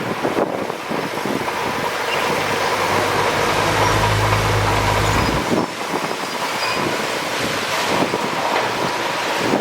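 Heavy diesel earthmoving machinery running, with a steady low engine drone that grows stronger for about two seconds near the middle.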